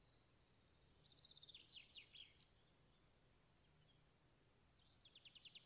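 Near silence, with faint bird chirps in the background: two short runs of rapid high chirps, one about a second in and one near the end.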